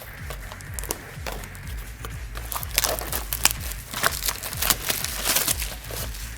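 Trading-card pack wrapper being crinkled and torn open by hand, a run of irregular crackles that get busier about three seconds in.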